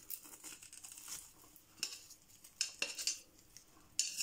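Light scrapes and several sharp little clicks of hard objects among the decorative pebbles of a succulent pot as an aeonium is being worked loose, the clicks spread through and one of the loudest near the end.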